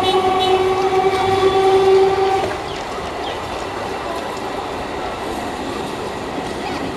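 WAP-7 electric locomotive sounding one long horn blast that cuts off about two and a half seconds in, followed by the steady rumble of the approaching express train on the rails.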